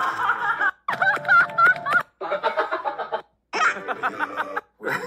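A run of short recorded human laughs and amused vocal bursts, each about a second long and cut apart by brief silences, played back one after another as samples labelled amusement.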